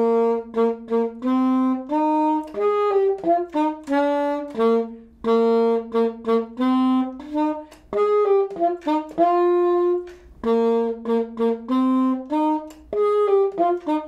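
Alto saxophone playing a simple melody alone: a string of short separated notes with brief gaps between them and a few longer held notes.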